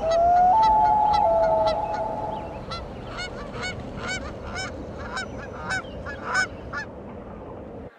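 Long sliding tones for the first couple of seconds, then a flock of birds calling over and over, with short arched honk-like calls a few times a second, over a low rumble.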